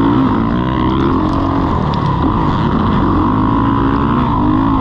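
Dirt bike engine revving up and down as it is ridden around a motocross track, its pitch rising and falling several times.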